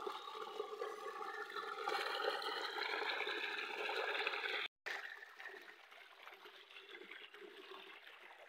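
Water pouring and splashing steadily, as from an irrigation tube well's discharge pipe. It cuts out abruptly about halfway through, then carries on quieter.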